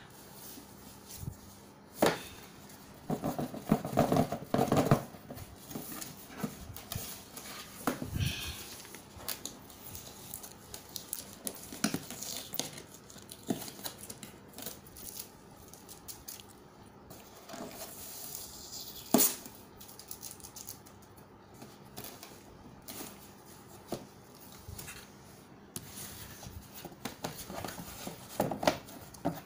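Cardboard shoe box being opened and handled by hand. Scattered sharp clicks and knocks come with short bursts of cardboard and paper rustling and scraping.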